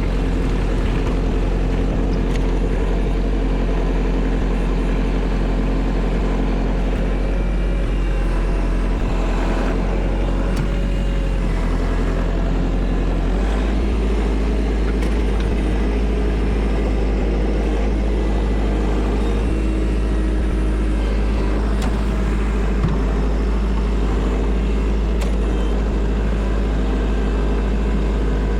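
Kubota tractor's diesel engine running steadily under load while pushing snow with a front snow pusher, in medium gear and four-wheel drive. The engine note shifts about halfway through.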